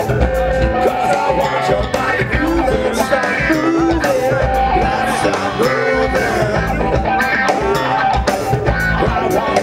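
Live funk-rock band playing: electric guitar and drum kit keeping a steady groove, with a lead voice at the handheld microphone over the top.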